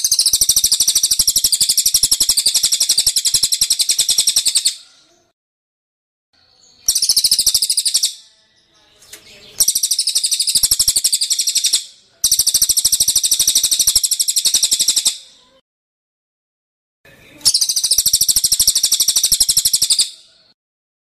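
Caged cililin and kapas tembak songbirds calling in long bursts of very rapid, high-pitched notes. There are five bursts with short pauses between them.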